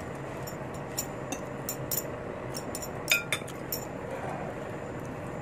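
Metal cutlery clinking against a plate several times during a meal, the loudest a short ringing clink about three seconds in.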